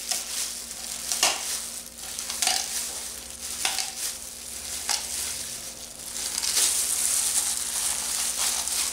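Kitchen shears cutting through a raw chicken's backbone and ribs: crunching snips of bone and cartilage roughly every second, with denser crackling near the end.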